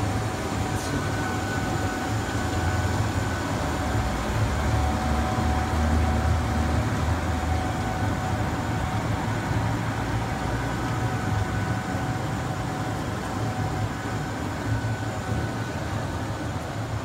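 Steady running noise of a hydrogen electrolysis generator unit: a constant low rumble with a faint high whine over it.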